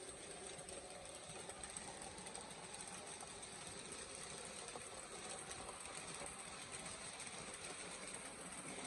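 Faint, steady whirr of N gauge model trains running: small electric motors and wheels rolling on the track, with a thin high whine held throughout.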